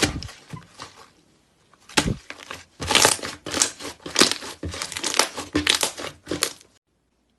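Slime being squeezed and kneaded by hand, giving a dense run of irregular crackling, crunchy pops with a short pause early on. It cuts off abruptly near the end.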